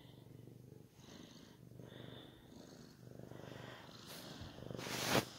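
Domestic tabby cat purring, a low rumble that breaks briefly about once a second as it breathes in and out. Near the end a louder short rushing noise builds and cuts off suddenly.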